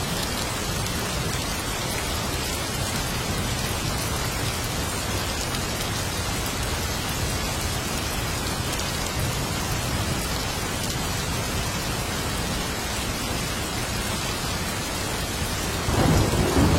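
Steady rain falling, an even hiss of drops on surfaces. Near the end a low roll of thunder begins and swells louder.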